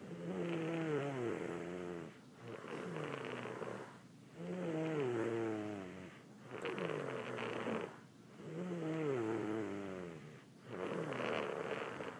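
A sick sleeper snoring in a steady rhythm, one breath about every four seconds. Each breath is a pitched, wavering snore that falls in pitch, followed by a rougher, noisier rasp, with short pauses between breaths.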